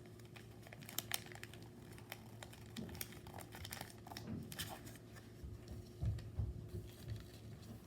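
Paper rustling and crinkling in short, scattered crackles as a sheet is folded and creased by hand, over a faint steady hum.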